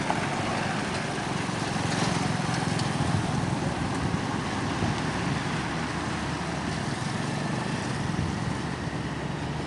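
Road traffic passing close by: a small truck, a hatchback car and motorcycles drive past one after another, with engine and tyre noise, loudest a couple of seconds in.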